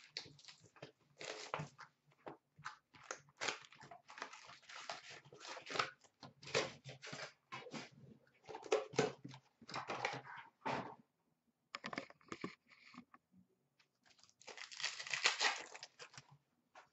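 Upper Deck Synergy hockey card box being opened and a wrapped card pack torn open, the wrapper crinkling and ripping in irregular crackles. A short lull comes a few seconds before the end, then a dense run of crinkling.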